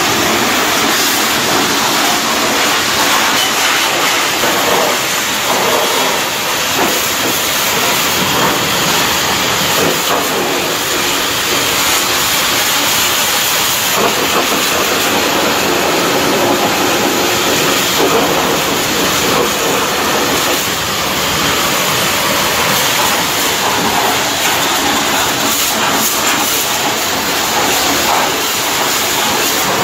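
Pressure-washer jet spraying water against a truck's wheel and underbody to blast off thick mud: a loud, steady rushing hiss.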